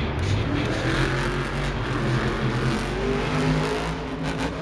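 Monster truck engine revving hard, its pitch climbing over a few seconds as the truck charges at a dirt jump and leaves the ground.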